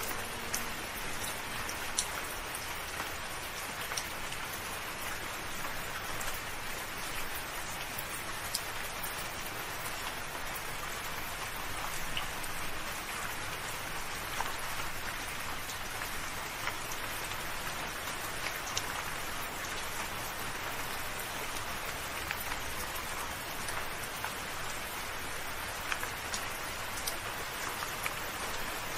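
Steady rain falling, with scattered louder drops tapping now and then.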